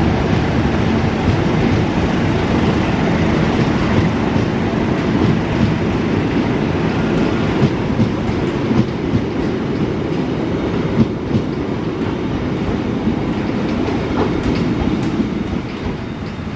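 Economy-class passenger coaches rolling past on the adjacent track as a train departs: a steady rumble of wheels on rail with occasional clicks, easing off slightly near the end as the last coach moves away.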